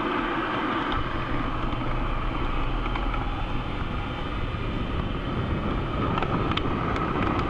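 O scale model train running along the track: a steady low engine rumble from its sound system that strengthens about a second in, over the rolling noise, with a few sharp clicks near the end.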